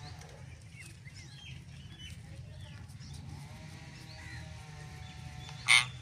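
Alexandrine and ringneck parakeets calling: scattered short chirps and a drawn-out tonal call, then one short, loud, harsh screech near the end, over a steady low hum.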